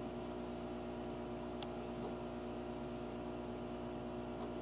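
Steady low hum of running equipment, made of several steady tones over a faint hiss, with one brief faint high chirp about a second and a half in.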